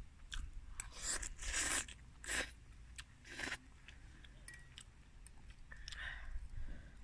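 Instant noodles slurped from a fork in three hissing draws within the first few seconds, then eating sounds with a few light ticks of a metal fork in a bowl.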